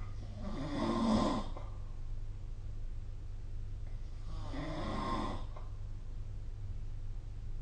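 A sleeping person snoring: two snores about four seconds apart, each lasting about a second, over a steady low hum.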